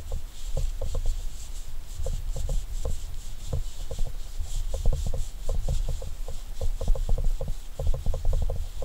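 A crumpled paper towel is rubbed over a knife's wooden handle, working lard into the wood. It crinkles and rustles in quick, irregular crackles, over low handling bumps.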